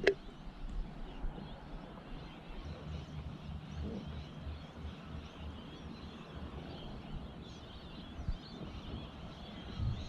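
Faint outdoor background with birds calling in the distance over a low rumble, after a sharp click at the very start.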